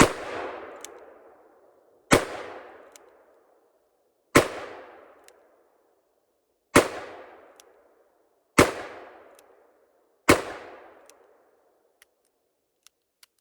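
Six gunshots fired one at a time, roughly two seconds apart, each followed by a long fading echo. A few faint ticks follow near the end.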